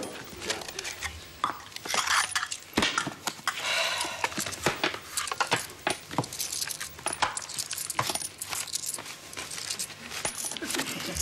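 Many light clicks, knocks and clatter of small hard objects being handled on a card table, with a stretch of denser rustling about four seconds in.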